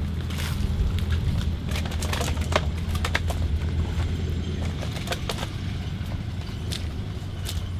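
A motor runs steadily with a low hum, with scattered clicks and knocks throughout.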